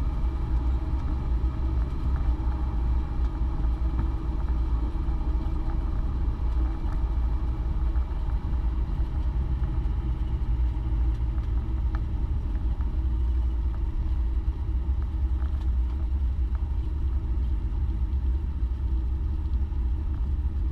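Cessna 172's engine and propeller running with a steady, even drone.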